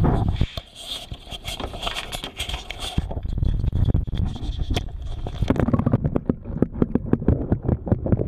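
Handling and scraping on a waterproof camera as it is plunged into a pond. About three seconds in, the sound turns muffled as the microphone goes under water, leaving a low rumble with many clicks and knocks.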